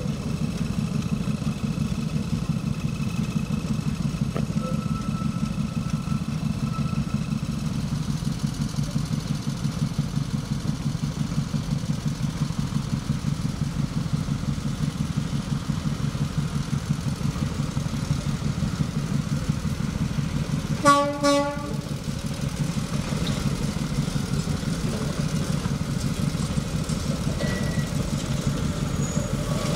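Narrow-gauge diesel locomotive engine idling with a steady low throb. About 21 seconds in, a locomotive horn gives two short toots.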